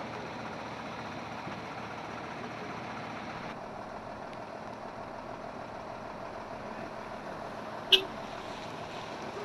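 Steady background noise of vehicle engines idling by the roadside, with one sharp click about eight seconds in.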